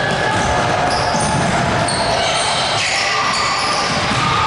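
Youth basketball being played on a hardwood gym floor: a ball dribbling and sneakers squeaking in short high-pitched squeaks, over the steady noise of the hall.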